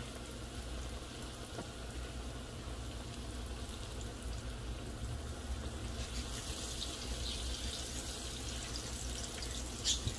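Breaded eggplant slices frying in a skillet of hot vegetable oil: a steady sizzle. About six seconds in another slice goes into the oil and the sizzling turns louder and more crackly.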